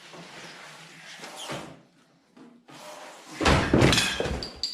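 A heavy metal toolbox being handled: soft shuffling noise, then a loud clunk and rattle about three and a half seconds in as it is taken up.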